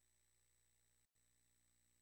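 Near silence: only a faint steady hiss and hum, which cuts out completely for an instant about a second in.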